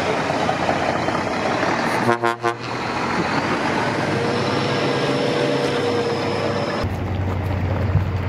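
Steady outdoor background noise around parked lorries, with a faint held horn-like tone for a few seconds midway. After a cut near the end, a steady low hum takes over.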